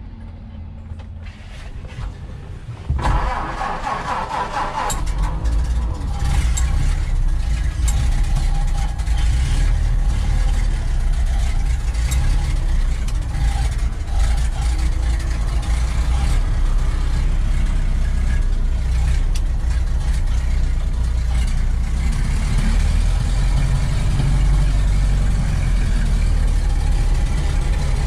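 1929 Ford Model A's four-cylinder flathead engine cranked by the starter for about two seconds, then catching and settling into a steady idle.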